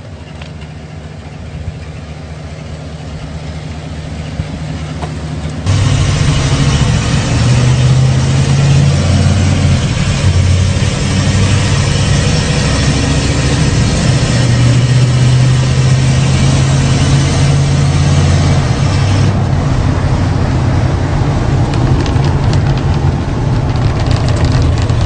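1950s Chevrolet Cameo pickup's engine running as the truck is driven, first heard from outside as it goes past, then from inside the cab, much louder from about six seconds in. The engine note rises and falls with engine speed.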